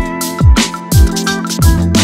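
Background music with a steady beat and deep kick drums.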